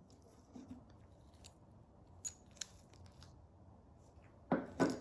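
Small scattered clicks and taps, then two louder knocks near the end: metal parts of a vintage sewing machine being handled as its pulley is worked off.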